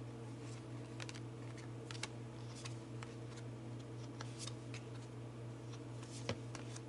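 Scattered light clicks and soft taps of tarot cards being handled, over a steady low electrical hum.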